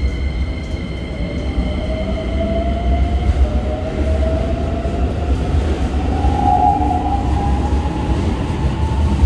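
Keikyu 1000 series electric train pulling out of the station and accelerating past, its Toyo hybrid SiC-VVVF inverter giving a whine that rises steadily in pitch over the rumble of wheels on rails. Some steady high tones drop out about three seconds in.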